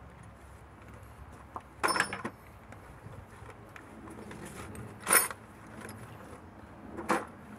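Sharp metallic clanks and rattles: a short cluster about two seconds in, then single clanks about five and seven seconds in, over a low steady rumble.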